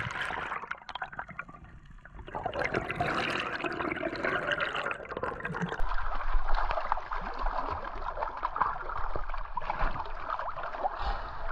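Water churning and bubbling, heard underwater. About six seconds in it changes to splashing and lapping water at the surface beside an inflatable boat as a speared yellowtail kingfish is lifted against the boat, with a low rumble underneath.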